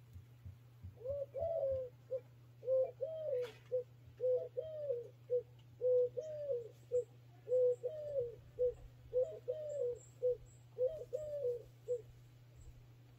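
A dove cooing a repeated three-note phrase, a short note, a longer rising-and-falling note, then a short note, about seven times at roughly one-and-a-half-second intervals.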